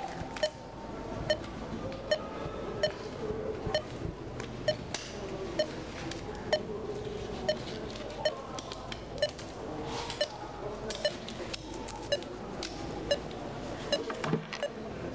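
Heart-rate monitor beeping steadily, one short pitched beep about every second, over a low steady background hum.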